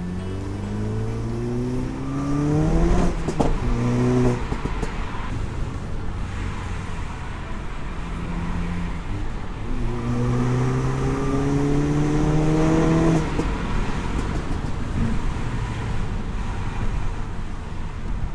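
Audi A3 8P's turbocharged TFSI four-cylinder engine accelerating hard, heard from inside the car over steady road noise. The engine note climbs for about three seconds, breaks sharply at a quick upshift and eases off about four seconds in; it climbs again from about ten to thirteen seconds in, then drops away as the throttle is lifted.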